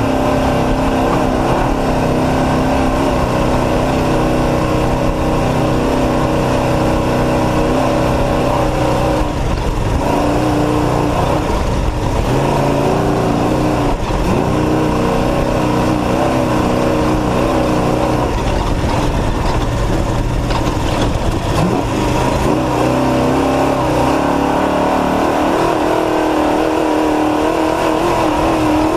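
Off-road race truck engine running hard, its pitch rising and falling with the throttle.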